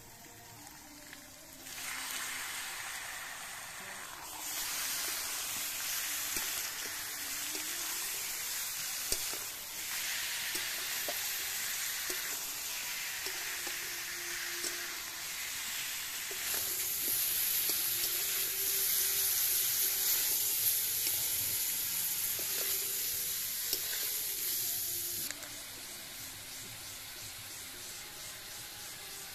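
Food sizzling as it fries in hot oil in a pan, with a few short knocks of a spoon stirring it. The sizzle starts about two seconds in, gets louder in steps and drops off sharply near the end.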